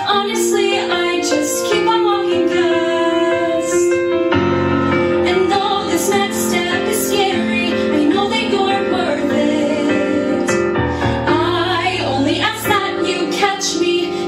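A woman singing a song over instrumental backing; the backing grows fuller, with a low bass coming in about four seconds in.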